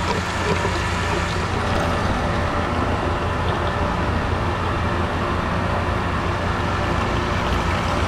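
Water draining from an isolated condenser water line, pouring in a steady stream into a plastic bucket, over the steady low hum of condenser water pumps still running.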